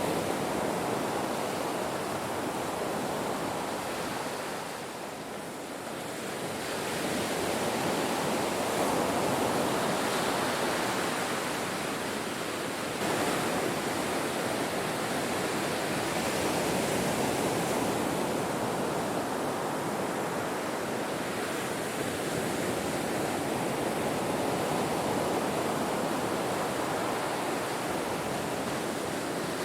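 Ocean waves crashing on a shore: a continuous rush of surf that eases off about five seconds in and swells back up a few seconds later.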